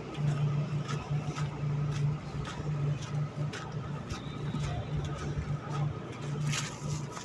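A low engine drone that pulses on and off unevenly, with scattered clicks and knocks over it.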